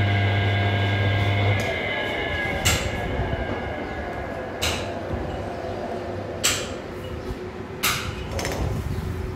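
A lathe's motor hums steadily, then cuts off about one and a half seconds in, its pitch falling as it winds down. Four sharp metal clanks follow, roughly two seconds apart, as the tool post on the compound rest is worked by hand.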